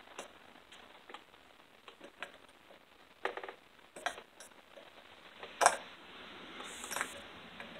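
Small metallic clicks and taps as an E-clip is worked off the clutch drum shaft of a Stihl chainsaw, scattered and irregular, with one sharper click about two-thirds of the way through.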